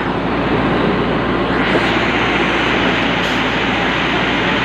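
Diesel engine of an SEM wheel loader running steadily under load as its bucket pushes a heavy wooden fishing boat down the slipway.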